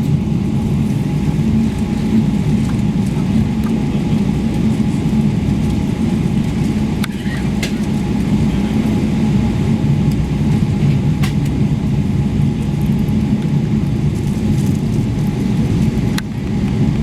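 Steady low rumble inside the cabin of a Boeing 777-300ER on the ground, with a faint steady tone above it and a few light clicks.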